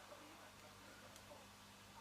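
Near silence: quiet room tone with a faint steady hum and one faint tick about a second in.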